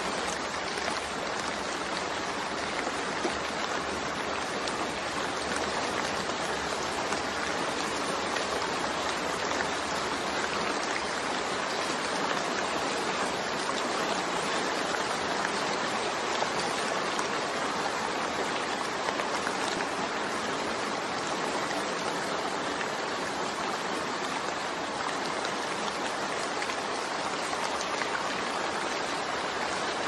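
Steady rain: an even hiss of many falling drops.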